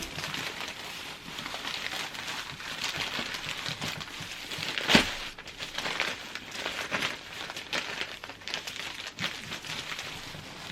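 Plastic wrap crinkling and rustling as cookie dough is wrapped and sealed, with a sharper crackle about halfway through.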